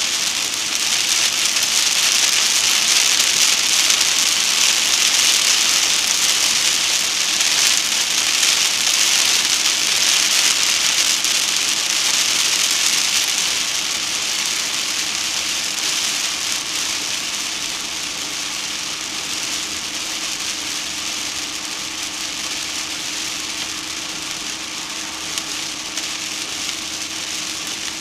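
Moderate rain pattering on a moving car, with tyre spray hiss from the wet road and a faint steady hum. The rain is heavier for the first half and eases off after about fourteen seconds.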